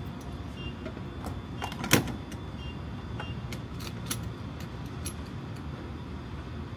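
Gas pump being handled at the car: scattered clicks and knocks, a sharper knock about two seconds in, and a few short high beeps over a steady low rumble.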